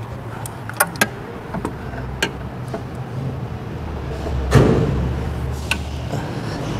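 Hand tools and loose metal parts clicking and knocking during work in a car's engine bay, over a steady low hum, with one short, louder burst of noise about four and a half seconds in.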